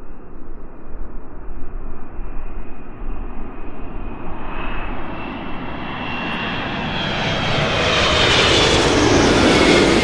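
Airliner flying past: a steady engine rumble with a thin whine over it, growing louder and loudest near the end as the plane comes closest.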